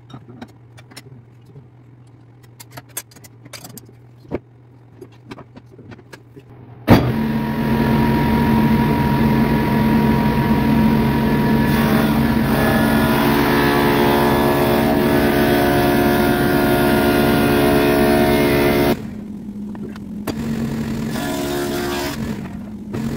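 Table saw switched on about seven seconds in, running and cutting a strip of jatoba hardwood pushed through with a push block. The sound drops sharply about nineteen seconds in to a lower running level. Before it starts there are light clicks and taps of handling at the saw.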